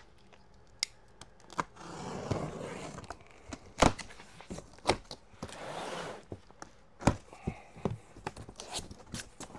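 Cardboard box and packing material being handled: rustling and scraping, broken by several sharp knocks and clicks, the loudest about four seconds in.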